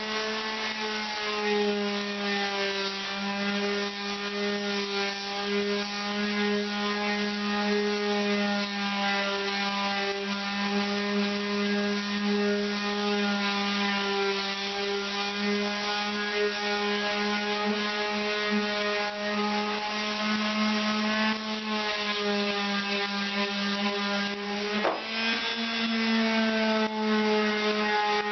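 Power sander running steadily against a lead-free body solder fill on a welded patch panel seam, a steady motor hum with a slight scraping rub. About three seconds before the end its pitch dips sharply and then recovers.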